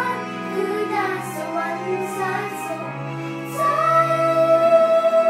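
Music with a girl's voice singing a melody, moving between notes and then holding one long note from about three and a half seconds in, where it gets louder.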